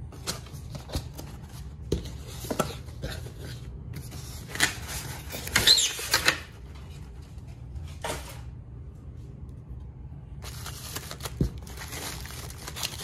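Polystyrene foam packing block being worked out of a cardboard box by hand: knocks, scrapes and a squeak of foam against cardboard, loudest in a burst around five to six seconds in.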